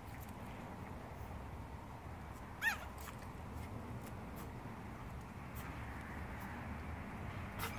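A Boston terrier puppy gives one short, high yip about a third of the way in, over a steady low outdoor background.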